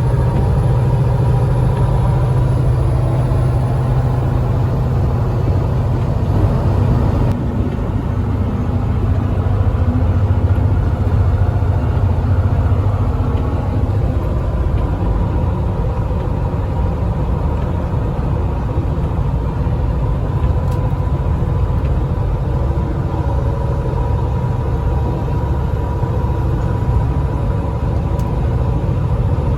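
Truck running steadily with a low rumble, its engine and road noise unbroken throughout.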